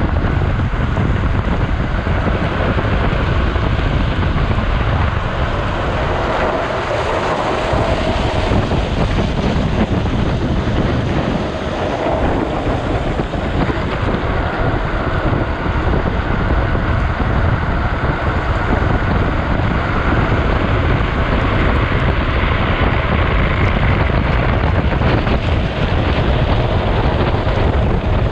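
Wind rushing over a front-mounted action-camera microphone, with the rumble of a drift trike's wheels on a wet road as it descends at speed.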